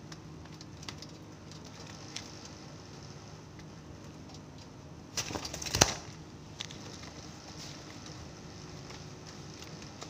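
Zebra dove briefly flapping its wings about five seconds in as it drops from its perch, with a few light clicks before and after over a steady low hum.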